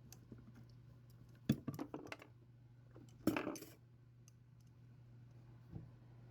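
Two short bursts of clicking and clattering from small hard objects being handled, and a single light knock near the end, over a low steady hum.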